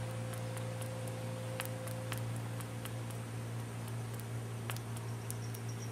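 Steady low hum in the background, with a few faint light ticks and clicks scattered through as a lifter and a lube tube are handled; a fainter steady tone above the hum fades out about two seconds in.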